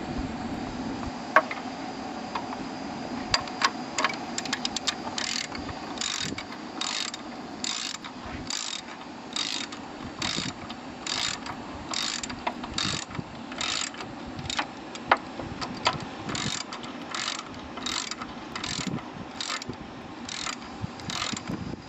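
Hand socket ratchet wrench clicking through steady back-swings, about one a second, as a bolt is run down. A few sharp metal clicks and knocks come first.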